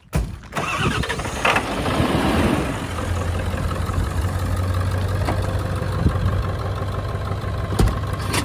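Ford F-350 pickup's engine starting: it cranks and catches within the first second, runs up louder for a second or two, then settles into a steady idle.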